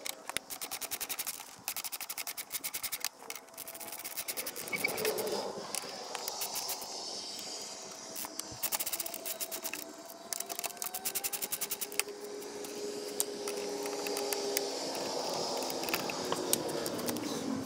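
Ratchet wrench clicking in rapid runs, several times over, while the exhaust is being unbolted from the motorcycle.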